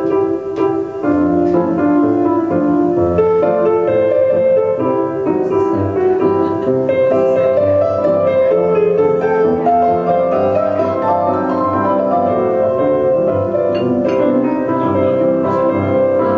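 Piano music playing steadily, a run of sustained notes and chords.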